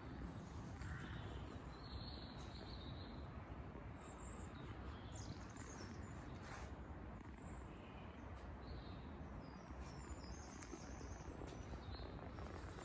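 Quiet outdoor ambience: small birds chirping now and then over a low, steady rumble.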